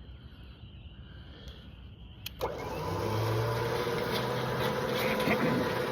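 Log winch motor switched on: a click, then about two and a half seconds in the motor starts suddenly and runs steadily with a hum. The drum is still on free spool, so the cable is not being reeled in.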